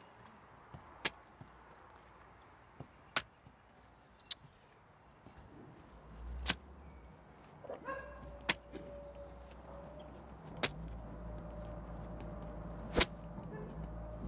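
Sharp single knocks, about seven of them, spaced roughly two seconds apart. A low steady hum and a faint steady tone come in about halfway through.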